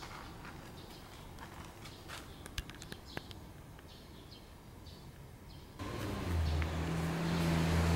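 Outdoor ambience with a few faint short chirps. About six seconds in, a loud motor-vehicle sound comes in suddenly: a steady low engine hum under a noisy rush.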